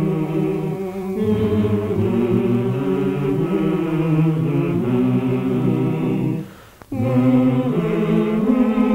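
A choir singing a slow song in low voices, moving through long held notes, with a brief break about six and a half seconds in before the singing resumes.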